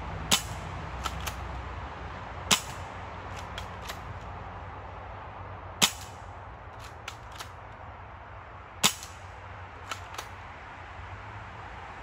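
Crosman PSM45 spring-powered BB pistol firing four shots a few seconds apart, each a sharp snap, with two or three fainter clicks following each shot.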